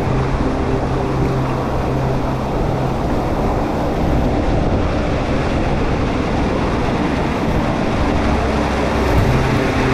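Creek water of a small waterfall rushing and splashing into a rock pool, heard up close as a loud, steady rush.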